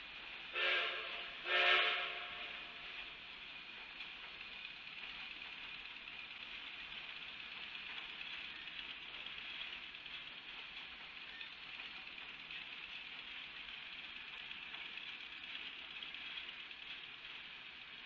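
Two short blasts of a steam locomotive whistle, from K36 narrow-gauge engine 487 hauling a departing passenger train, the second a little longer than the first. A steady hiss follows.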